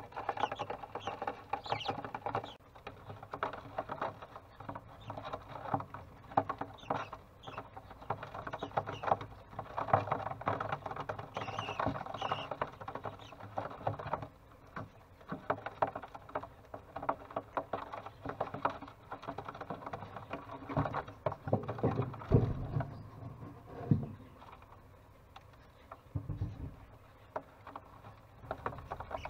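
Budgie chicks scratching and rustling about in a wooden nest box, a dense run of small clicks and scrapes, with a few dull knocks in the later part.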